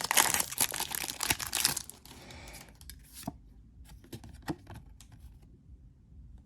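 Pokémon booster pack's foil wrapper being torn open and crinkled, loud for about the first two seconds. It then drops to quiet handling with a few light clicks.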